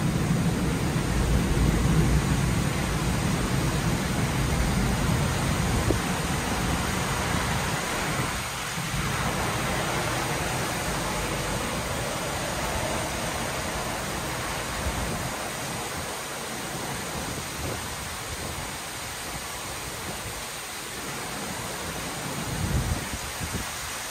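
Torrential rain pouring down in a steady hiss. A low rumble underneath through the first few seconds dies away.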